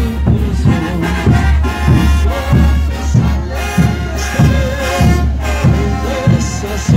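Bolivian brass band playing a morenada live: brass melody over a steady, evenly spaced bass drum beat.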